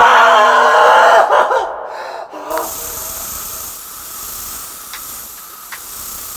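A man screams loudly for about a second and a half. Then, about two and a half seconds in, a steady hiss of bug spray starts from a sprayer hose aimed at a mattress.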